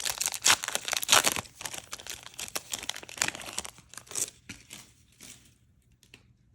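A foil trading-card pack being torn open and crinkled, a fast run of crackles that thins out and stops about five seconds in.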